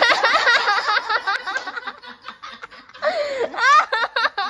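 People laughing hard in quick repeated bursts, dying down after a second or so, then breaking out again about three seconds in.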